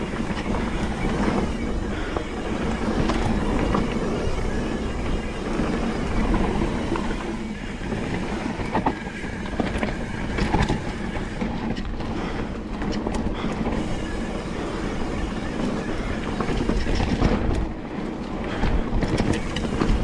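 Mountain bike ridden fast down a rough trail: tyres rolling over dirt and rock, with a continuous rattle and clatter from the bike over the bumps.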